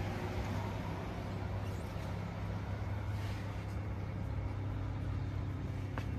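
Steady low drone of a running motor, holding a constant pitch throughout, with a faint click near the end.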